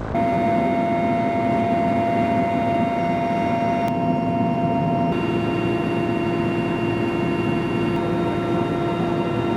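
Military helicopter running steadily in flight, engine and rotor noise with several steady whining tones over it; the pitch of the main whine changes abruptly about five seconds in.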